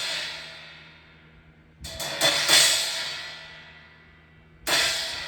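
16-inch Dream crash cymbal struck and left to ring out: a hit still ringing at the start, a quick cluster of about four strikes around two seconds in, and another hit near the end, each fading away slowly.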